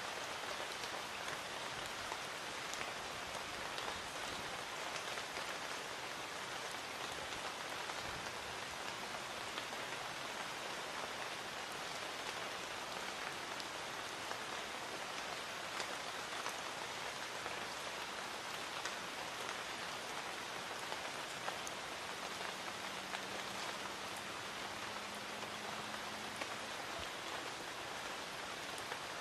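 Light rain falling steadily, an even patter of many small drops.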